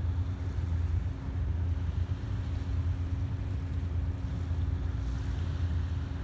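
Tugboat's diesel engine droning steadily across the water: a low hum with a steady tone above it, mixed with some wind on the microphone.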